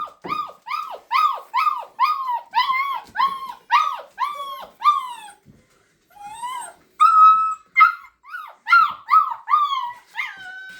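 Dog whining for attention in a quick, even run of high, rising-and-falling whines, two to three a second, like a car alarm. After a short break about five and a half seconds in, it goes on with longer, more varied whines.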